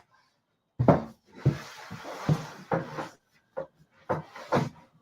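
Wooden shelf being worked loose from an armoire: a string of about seven sharp wooden knocks and bumps with scraping between them, starting about a second in.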